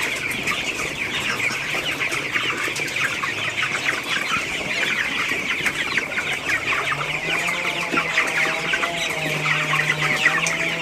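A flock of 20-day-old broiler chickens calling all at once, a dense chorus of overlapping peeps and clucks. A low hum joins about two-thirds of the way in.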